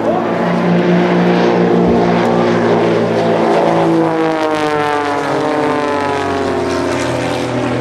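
Piston engines of a pair of propeller-driven aerobatic biplanes droning in flight, several engine tones at once. From about halfway through, the pitch falls steadily as the planes pass by and draw away.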